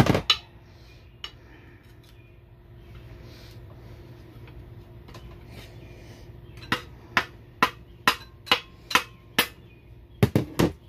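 Hammer blows on a steel pry bar, driving out a part stuck fast in a 2006 Honda Odyssey automatic transmission case. A couple of blows come at the start, then a run of about eight sharp strikes at roughly two a second, and two or three quick ones near the end. The transmission has been overheated, which makes the part come out hard.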